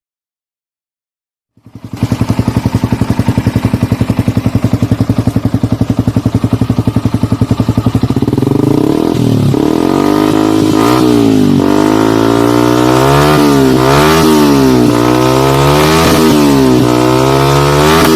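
Yamaha R15 V3's single-cylinder engine through an aftermarket slip-on exhaust, starting after a short gap of silence. It idles with a steady, even pulse, then from about eight seconds in it is revved up and dropped back again and again in quick throttle blips.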